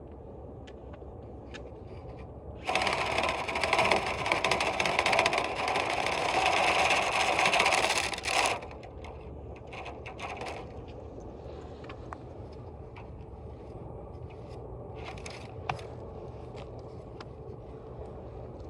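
Dryer vent cleaning equipment running with a steady low hum. A loud rushing, rattling noise begins about three seconds in and lasts about six seconds, followed by two short, weaker bursts.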